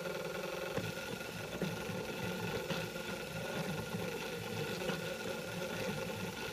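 M3D Micro 3D printer's stepper motors buzzing and whirring as the print head moves while printing, the pitch jumping in short steps with each move over a steady high whine.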